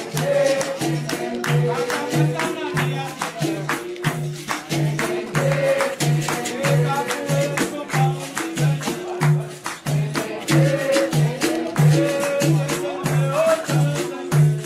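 Capoeira bateria: berimbaus playing the rhythm with shaken caxixi rattles, over a steady low beat about twice a second.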